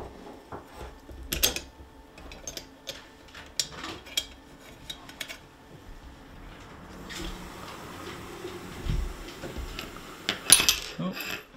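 Metal parts of an Umarex HDX 68 air shotgun being handled during disassembly: a run of light metallic clicks and clinks, a scraping slide from about seven seconds in, and the loudest clatter at about ten and a half seconds, as the alloy receiver half is set down.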